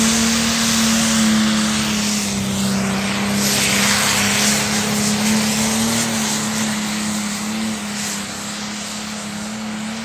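Diesel pulling tractor's engine running flat out under full load as it drags the weight sled, a loud, steady howl that holds one pitch.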